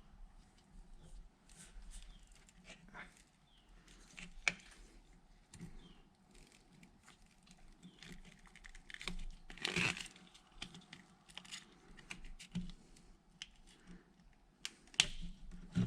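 Scattered clicks, taps and crinkling from hands working on a heavy battery cable and its cutting tools. A louder burst of handling noise comes about ten seconds in, and a sharp click comes near the end.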